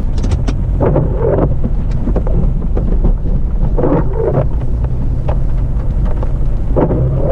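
Heavy low rumble of an off-road 4x4 on a muddy track, mixed with wind buffeting the microphone, with three short louder surges.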